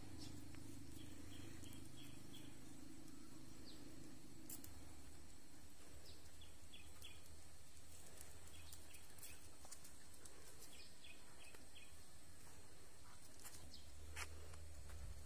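Faint rural outdoor ambience: short high chirps in little runs of three to five, over a thin steady high tone and a low hum, with a few light clicks.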